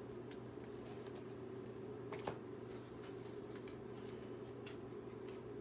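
Quiet room tone: a steady low hum with a few faint clicks, one a little louder about two seconds in.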